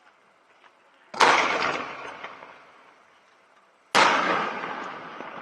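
Two aerial firework shells bursting about three seconds apart, each a sudden loud bang that fades away in a long echo.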